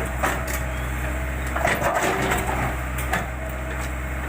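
JCB backhoe loader's diesel engine running steadily, with repeated crunching and cracking as the bucket breaks and scrapes up road material.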